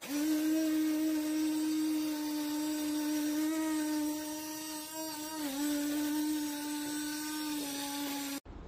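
Portable USB-rechargeable bottle blender running, its small motor spinning the six-blade cutter with a steady high whine. The pitch dips briefly about five and a half seconds in as the blades take load, then recovers. The sound cuts off abruptly near the end.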